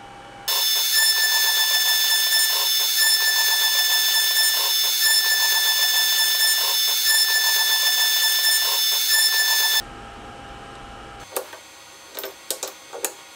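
X-Carve CNC spindle running at speed while a V-carving bit engraves wenge wood: a loud, steady high whine with a regular pulsing as the bit cuts, cutting off abruptly about ten seconds in. Near the end come several sharp metallic clicks as a bit is fitted into the spindle collet with a wrench.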